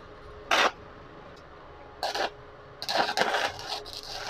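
Stick-welding arc struck from an MMA-300 DC inverter welder: a short crackle about half a second in, another around two seconds, then a longer sputtering, crackling arc from about three seconds on. A faint steady hum sits underneath.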